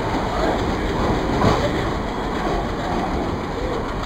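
Passenger train rolling along the track: a steady rumble of wheels on rail, with an occasional faint clack.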